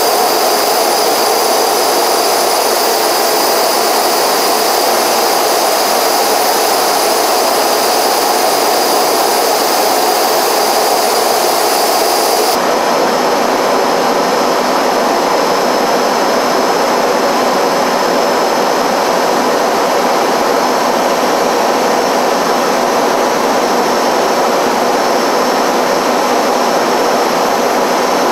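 Steady jet aircraft noise, engine and airflow, heard from inside the cabin of the aircraft flying alongside the F-22 Raptors. About twelve and a half seconds in, the sound changes abruptly as the shot cuts, the highest hiss dropping away.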